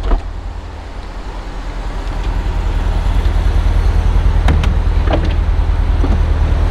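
Chevrolet C8 Corvette convertible with its 6.2-litre LT2 V8 idling steadily while the power-retractable hardtop lowers, with a few sharp clicks from the roof mechanism.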